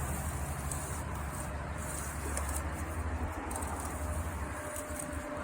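Steady low hum under general outdoor background noise.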